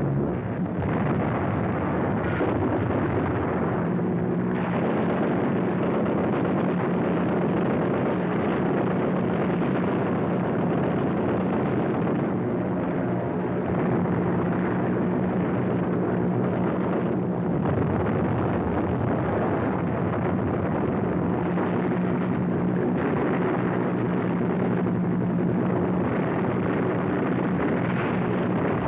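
Old, narrow-band war-film sound effects of an air raid: a steady rumble of explosions and fire under a droning hum of aircraft engines, with no single blast standing out.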